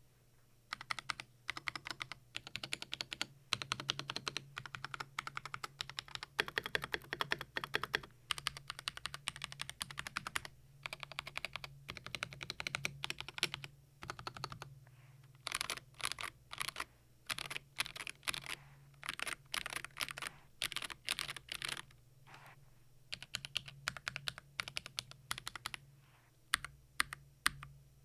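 Typing on a stock Keydous NJ68 Max mechanical keyboard with unlubricated Akko CS Ocean Blue switches and XDA-profile keycaps. Fast runs of keystrokes break off in short pauses, and the last few seconds are slower single presses. The switches sound scratchy because they are unlubed, and the stock spacebar ticks.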